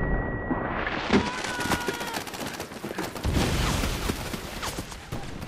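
Battle sound of WWII rifle and machine-gun fire. It opens with a steady high ringing tone over muffled, dulled sound, like deafened ears. About a second in, that gives way to dense, crackling gunfire with a few short whistles. A heavy low boom comes a little over three seconds in.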